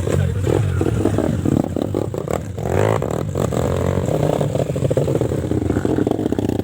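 Small trail motorcycle engine running and revving, its pitch shifting up and down about three seconds in.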